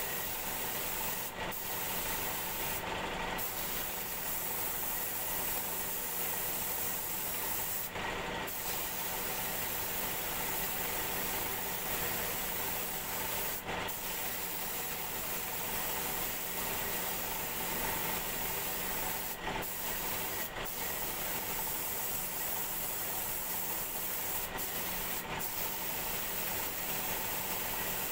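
Gravity-feed air spray gun hissing steadily as it sprays paint, with a few brief breaks in the hiss. A steady hum runs beneath.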